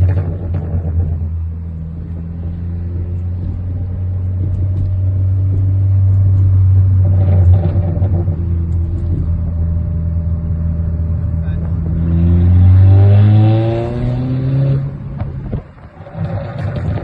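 Turbocharged 2.0 TFSI four-cylinder engine idling steadily, then revved once about twelve seconds in, its pitch rising and then falling away. As the throttle closes there are a few sharp cracks from the exhaust: overrun pops from a remapped ECU.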